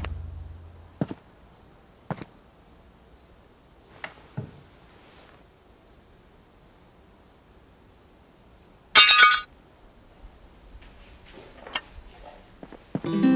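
Crickets chirping in a steady, pulsing high trill over a thin higher whine, with a few faint clicks and knocks. About nine seconds in there is one short, brighter clink.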